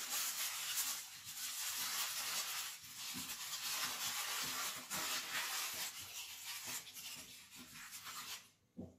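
Aluminium foil crinkling and rustling as hands roll it tightly around a log and twist its ends. The crackling is continuous and dies away near the end.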